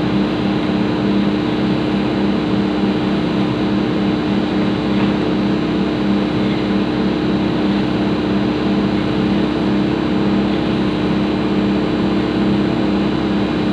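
Sumitomo 120 excavator's diesel engine and hydraulics running steadily, heard from inside the cab, with a constant hum and an even pulse beneath it, while the boom holds up a heavy load of cement.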